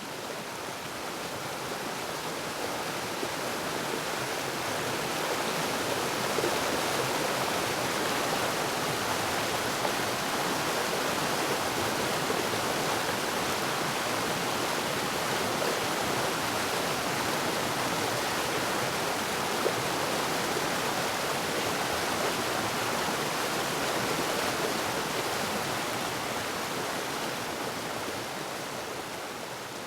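Waterfall: a steady rush of falling water, swelling up over the first few seconds and easing off near the end.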